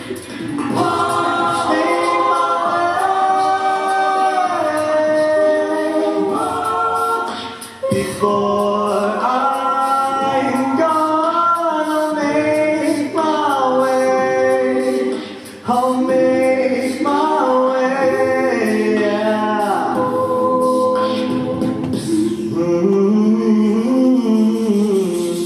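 Mixed-voice a cappella group singing in close harmony over vocal percussion, with two brief breaks, ending on a sustained chord.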